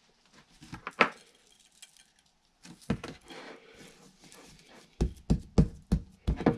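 Sharp knocks of a knife on a cutting board while pork ribs are being cut. There are a few scattered knocks at first, the loudest about a second in, then a quick run of about six in the last second and a half.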